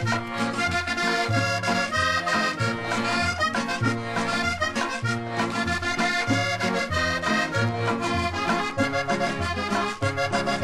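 Colombian cumbia played from a 45 rpm record: accordion carries the melody over drums and a pulsing bass line.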